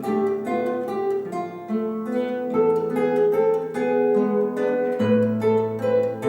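Instrumental music played on a plucked string instrument: a melody of short plucked notes over held bass notes.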